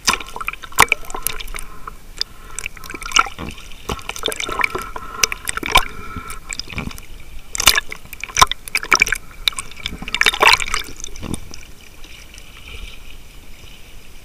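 Seawater sloshing and bubbling close up as the camera goes under the surface and back out, with many sharp pops and crackles.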